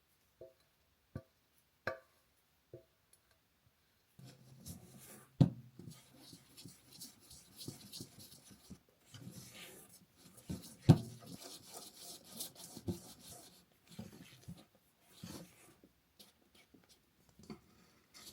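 A few light clicks, then a stretch of rubbing and scraping from cake preparation, broken by sharp knocks about five and eleven seconds in.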